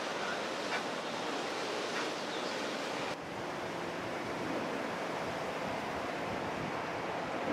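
Steady hiss of churning water and wind, changing slightly in tone about three seconds in.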